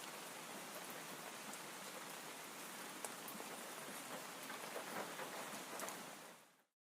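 Steady rain with many small drop ticks, a little louder about five seconds in, then fading out to silence near the end.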